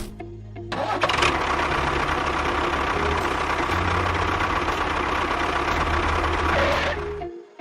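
An engine or motor running steadily with a dense, rattly noise and a low hum. It starts abruptly about a second in and cuts off just before the end.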